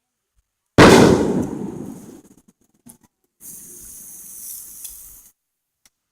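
A single loud firework bang about a second in, its rumble dying away over about a second and a half, followed by a steady hiss lasting about two seconds.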